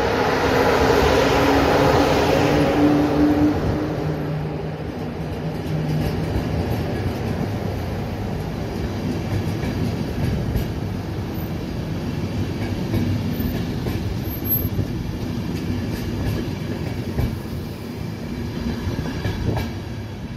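A passenger train hauled by an electric locomotive passing close by. The locomotive goes by first with a loud droning tone, and after a few seconds the steady rumble of the coaches' wheels on the rails takes over, with occasional sharp clacks. The rumble eases a little near the end as the last coach passes.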